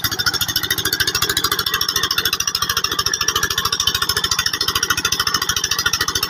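Tubewell pump engine running with a fast, very even thumping beat, and water rushing from its outlet into a brick irrigation channel.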